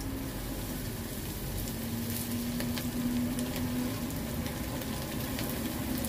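Cornstarch-coated chicken pieces sizzling as they deep-fry in hot oil in a wok, with scattered pops as more pieces are slid into the oil.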